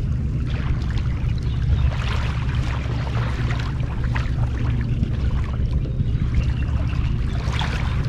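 Water splashing and lapping around a person floating in a river in a buoyancy vest, with irregular splashes over a steady low rumble.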